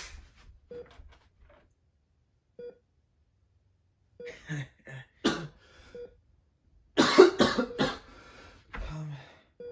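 A person sneezing: one sharp sneeze about five seconds in, then a louder burst of several sneezes around seven seconds in. A short faint electronic beep repeats about every second and three quarters.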